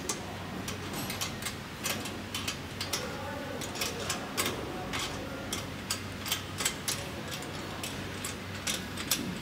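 Light clicks, uneven but about two or three a second, over a steady low hum, as metal parts of the packing machine's filler tube and clamp are handled and fitted.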